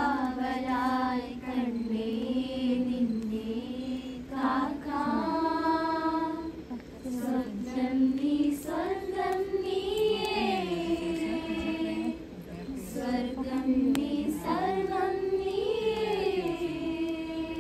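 A young woman singing solo and unaccompanied, one voice holding long, sliding notes in phrases with short breaks between them.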